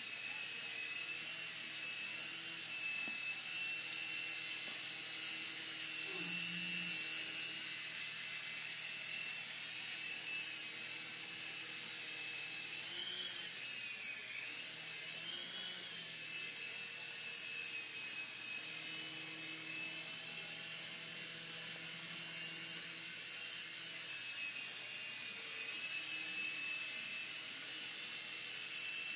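Small electric remote-control helicopter whirring in flight, a steady high-pitched motor whine whose pitch wavers up and down around the middle.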